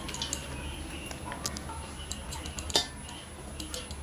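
Light clinks and scrapes of a metal slotted spoon against an aluminium cooking pot as boiled basmati rice is spooned in and spread into a layer, with one louder clink near the end, over a low steady hum.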